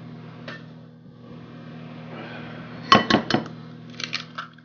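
An egg knocked against the rim of a mixing bowl: a quick run of sharp cracks about three seconds in, then lighter shell crackles about a second later as it is broken open.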